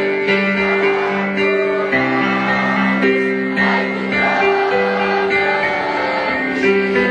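A choir singing a song with piano accompaniment, in held chords that change every half second or so.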